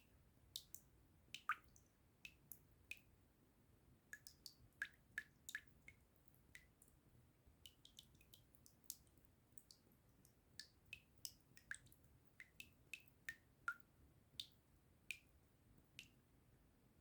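Water drops dripping in an irregular run, about two a second, each a short, sharp, pitched plink.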